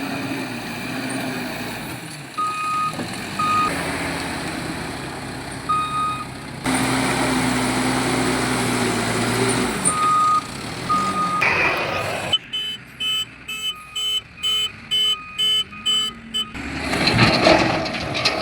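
Diesel machinery running, a backhoe loader and dump truck, with a reversing alarm beeping in short runs. Near the end there is a loud, noisy rush.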